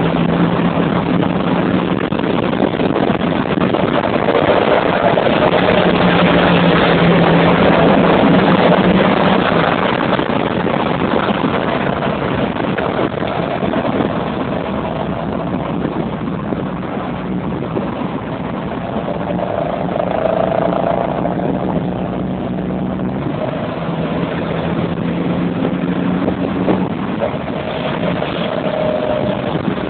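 Deep engine drone of a Chevrolet Camaro SS's V8 exhaust, heard from a following car at motorway speed over steady road and wind noise, swelling and fading several times.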